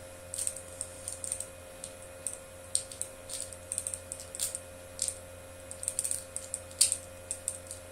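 Lock pick clicking and scraping against the levers inside a Squire 660 lever padlock as it is picked under tension: small irregular clicks, the loudest about seven seconds in, over a steady low hum.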